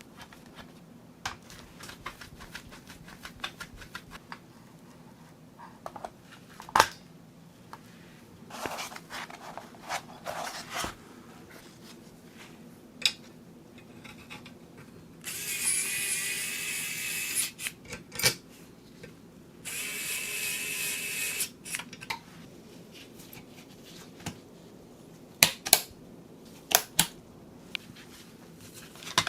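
Two bursts of about two seconds each of a small electric screwdriver whirring, about halfway through. Scattered light clicks and knocks of parts being handled come before and after.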